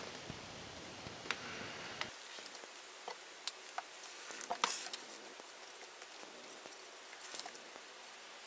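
Faint, scattered clicks and small ticks from squeezing wood glue out of a plastic bottle into biscuit slots and spreading it on pine boards.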